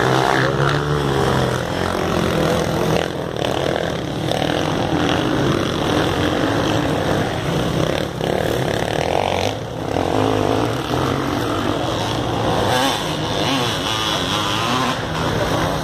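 Off-road dirt bike engines running hard and revving as the bikes race along a dirt track, their pitch rising and falling with the throttle.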